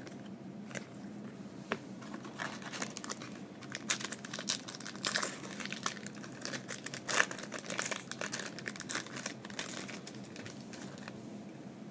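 Trading-card pack wrapper crinkling and tearing as it is opened and handled, with a few light clicks near the start.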